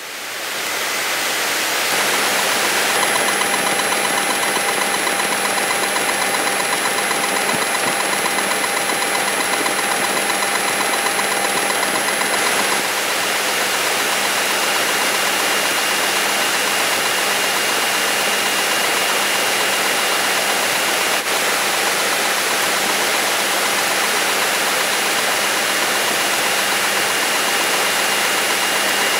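A light single-engine airplane's piston engine running steadily at low power, heard from inside the cabin. It fades in over the first second.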